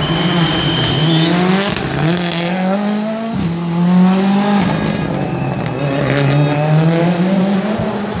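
Rally car engine accelerating hard, its pitch repeatedly climbing and then dropping back as it shifts up through the gears.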